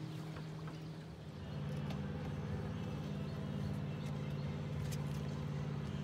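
Boat motor running steadily with a low hum, louder from about a second and a half in.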